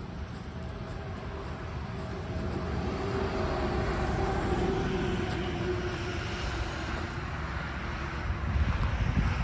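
An aircraft passing overhead: a distant engine drone that swells to its loudest about halfway through, then slowly fades, its faint hum drifting slightly lower in pitch. A louder low rumble comes near the end.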